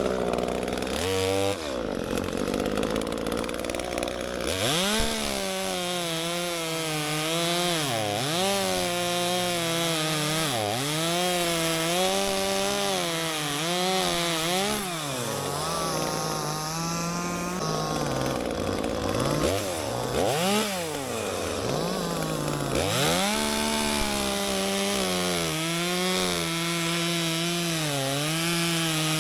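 Gasoline chainsaw bucking a felled tree into short log rounds. It runs at high revs, its pitch dipping sharply and recovering every few seconds as it works through the wood.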